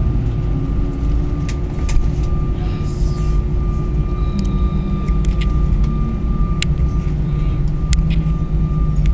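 Jet airliner cabin noise while taxiing after landing: the engines run at idle with a steady low rumble and a steady high whine, with scattered light clicks.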